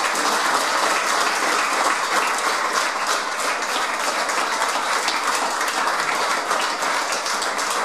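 Small crowd applauding, many hands clapping at once.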